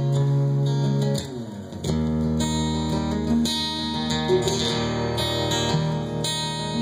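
Live acoustic guitar strumming chords with keyboard accompaniment in an instrumental passage without vocals. The music dips briefly about a second in, then picks up on a new chord.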